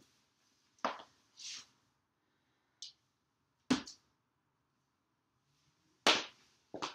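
Handling and movement sounds: a handful of separate soft knocks and clicks and one brief rustle, spaced out with silence between, the loudest knock about six seconds in.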